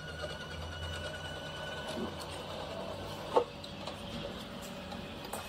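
Battery-powered automatic chicken coop door's small geared motor whining steadily as it winds the sliding door panel up. One sharp knock about three and a half seconds in.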